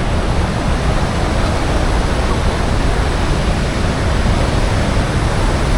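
Iguazú Falls: a huge mass of water pouring down close by, a loud, steady, unbroken rush with heavy low rumble.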